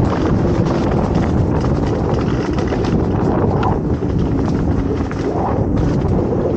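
Wind buffeting the microphone over the rattle and knocking of a mountain bike ridden down a rough dirt trail, with tyres rolling over the ground and frequent sharp clicks from the bike jolting over bumps.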